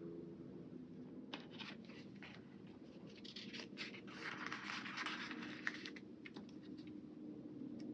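Faint scratchy rustling and crackling of a paper sticker sheet being handled as a small sticker is peeled off it, thickest in the middle.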